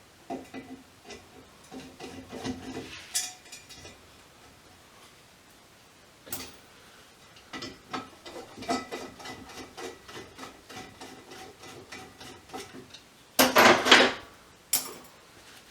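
Metal parts and hardware of a variable frequency drive clinking, knocking and rattling as it is taken apart by hand, in scattered bursts. Near the end comes a louder, harsher scraping rattle lasting about half a second.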